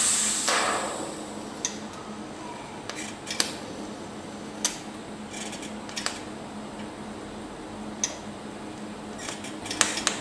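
TIG welder adding filler dots to the end of a seized broken bolt: scattered sharp metallic clicks every second or two over a steady low hum, with a louder burst of noise at the very start.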